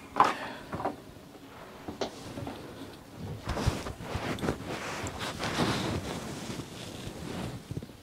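Irregular clicks, taps and rustling of small shower-valve parts being handled by hand, with a sharp click just after the start.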